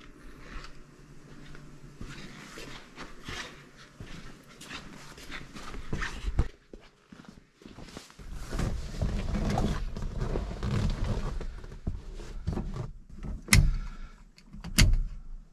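Rustling and shuffling of someone climbing into a car's driver's seat, then two sharp clicks about a second apart near the end: the toggle switches on the console being flipped.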